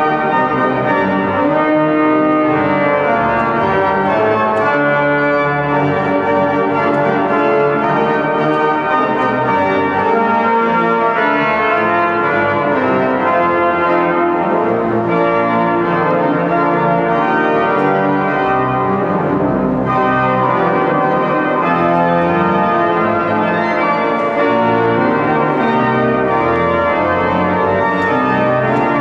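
The Wanamaker Organ, a very large pipe organ, playing loud sustained chords of many notes at once, low and high, that shift every second or so.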